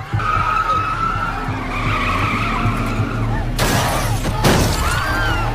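Truck tyres screeching in a long, steady squeal, then a sudden loud crash about three and a half seconds in.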